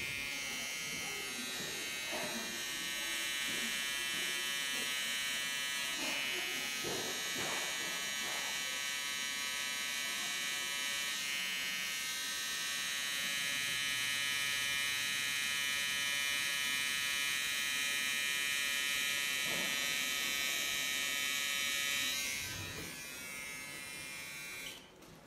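Electric permanent-makeup pen running with a steady, high-pitched buzz while implanting pigment into an eyebrow; it fades and stops near the end.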